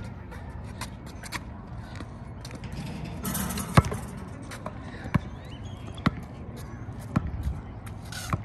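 A basketball bouncing on a concrete court: several sharp, irregular bounces roughly a second apart, the loudest about halfway through, just after a brief scraping hiss.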